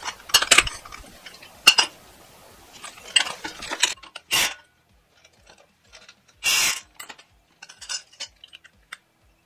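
Cordless impact wrench fired in two short bursts, the second about two seconds after the first, on the pinion yoke nut of a GM 9.5-inch 14-bolt axle: the nut is being run down a blip at a time to crush the crush sleeve and set pinion preload. Metal tools clink and clatter in the first few seconds.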